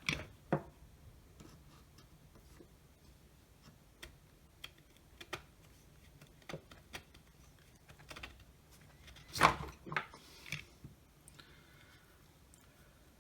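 Scattered light clicks and knocks of plastic and metal drill parts being handled and pulled apart, with two louder clunks about nine and a half and ten seconds in.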